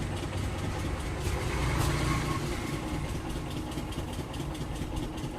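Steady low, engine-like rumble of a machine running, with a few faint small clicks.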